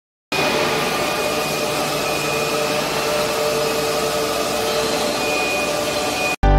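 Steady machinery noise in a forge shop hall: an even hiss and hum with a couple of faint steady whining tones. It cuts off abruptly near the end.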